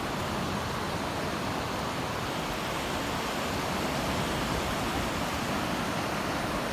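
Steady rush of ocean surf breaking on a beach, mixed with wind.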